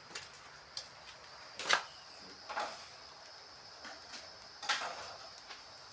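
A few short, sharp knocks and clicks, four in all, the second the loudest, over a faint steady high-pitched whine.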